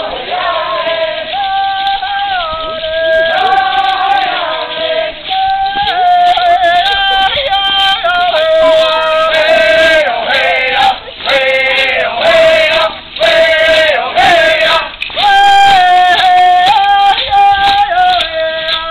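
Group of Wampanoag singers, men's and women's voices together, singing a stomp dance song with held notes that step up and down in pitch.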